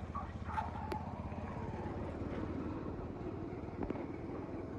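A motor vehicle's engine running steadily with a low, even rumble, plus a few faint knocks.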